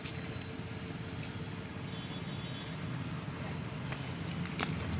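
Outdoor roadside background: a steady low hum of traffic with faint voices, and two short sharp clicks near the end.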